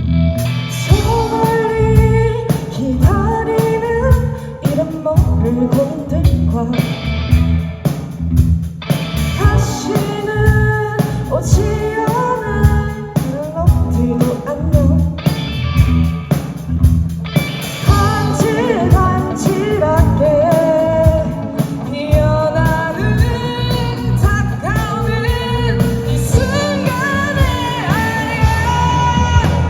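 A live rock band with drums, bass and guitars playing under a lead singer's vocal line.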